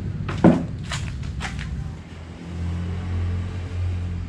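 A quick run of sharp knocks and clicks, the loudest about half a second in, then a low steady rumble from about two and a half seconds in.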